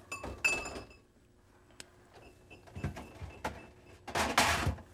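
Handling things inside a refrigerator: a few light knocks and ringing clinks, then near the end a metal sheet pan loaded with ceramic ramekins scraping as it is slid out off a fridge shelf.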